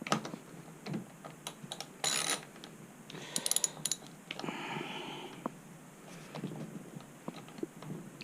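Hand tools and metal parts being worked during reassembly: scattered sharp clicks and knocks, a rapid run of clicks about two seconds in, another cluster of clicks a little later, and a scraping, rubbing sound around the middle, as parts are fitted and tightened.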